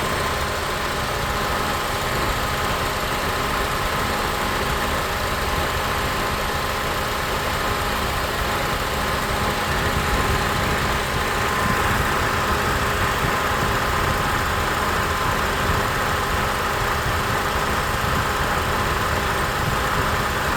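Honda CR-V's K24 four-cylinder engine idling with both radiator cooling fans running and the A/C compressor engaged: a steady whir and hum. The compressor and fans are stuck on with the A/C switched off, a fault that makes the A/C's cold line freeze up.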